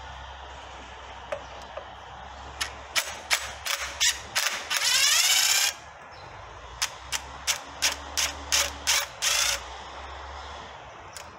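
Ryobi cordless impact driver hammering loose two 10 mm bolts on a water neck: about two and a half seconds in, a string of short trigger bursts and one longer burst of about a second, then a second string of short bursts.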